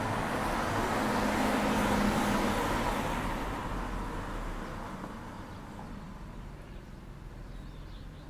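A car driving past, its engine and tyre noise swelling to a peak about two seconds in and then fading away over the next few seconds.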